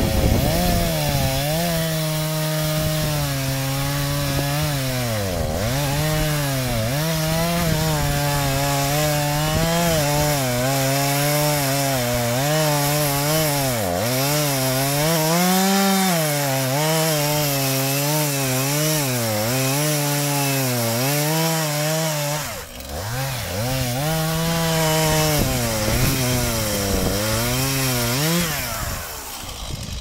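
Stihl MS 231 two-stroke chainsaw cutting through spruce under load, its engine pitch wavering up and down as the chain bites into the wood. The engine dips briefly about three-quarters of the way in and drops away near the end.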